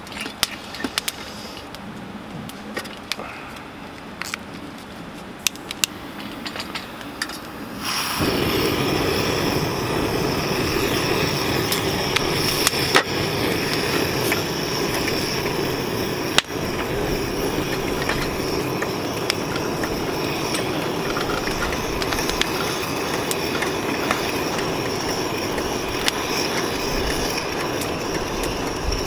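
Single-burner camp stove handled with scattered light clicks and taps, then lit about eight seconds in: the burner catches suddenly and runs with a steady hiss of burning gas.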